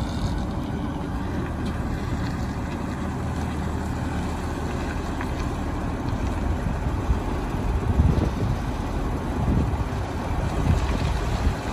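Diesel engine of a water tanker truck running as the truck pulls slowly away, a steady low rumble. Gusts of wind hit the microphone about two-thirds of the way in and again near the end.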